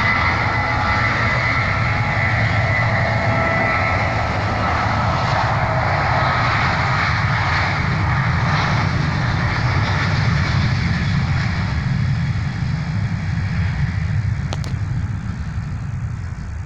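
Boeing 737-700's CFM56-7B turbofan engines at takeoff power: a steady jet roar with a whining tone over it, slowly fading over the last few seconds as the airliner climbs away. A single sharp click near the end.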